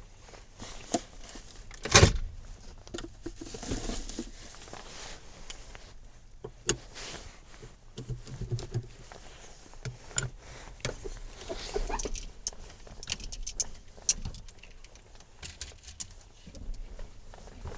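Scattered knocks and clicks of people moving about and handling things, with one loud thump about two seconds in.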